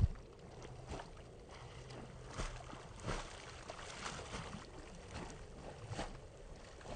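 German Shepherd dog swimming, its front paws paddling and splashing the water in uneven strokes about once a second.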